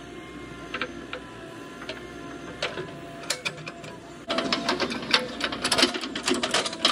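Diesel earthmoving machinery running steadily, with scattered light clicks. About four seconds in, a louder spell of dense rattling and clattering begins.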